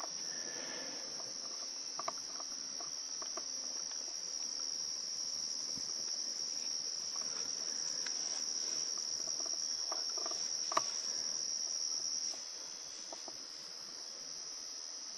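Night crickets trilling: one steady, continuous high-pitched chorus that falls a little quieter about twelve seconds in.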